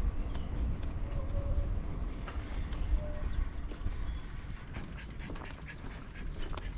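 Wind rumbling on the microphone of a bicycle being ridden along a path, with a couple of faint short bird calls in the first half and light clicking near the end.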